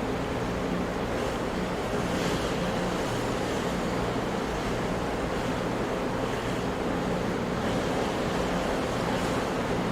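Ocean surf: a continuous wash of waves, with the hiss of breaking water swelling briefly about two seconds in, again after six seconds, and near the end.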